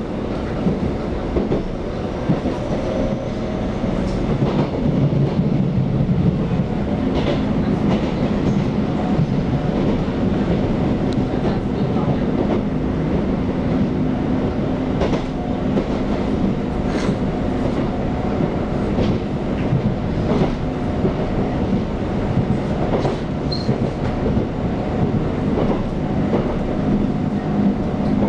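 Taiwan Railways EMU700 electric multiple unit running at speed, heard from inside the carriage: a continuous rumble of wheels on rail with a low steady hum, and sharp clicks every few seconds as the wheels pass rail joints.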